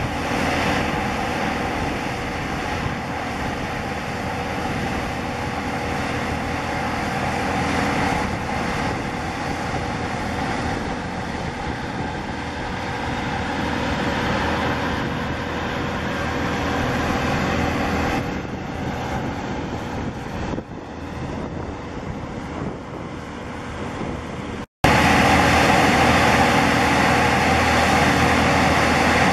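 Jet engines of an Airbus A320 airliner on final approach and touching down: a steady jet rumble with a held whine, easing off in the last several seconds before a sudden cut. After the cut, the louder engine noise of an Airbus A321 on final approach.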